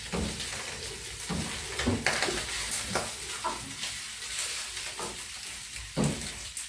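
Goat ribs sizzling in a wide frying pan, a steady hiss, with a wooden spatula scraping and knocking against the pan at irregular moments as the meat is stirred.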